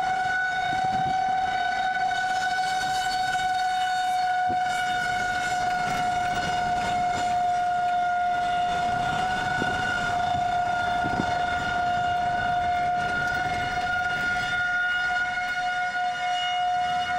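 Outdoor tornado warning siren sounding one steady, unbroken tone with a few faint knocks and low road noise beneath it; the siren signals a tornado warning with a large tornado on the ground.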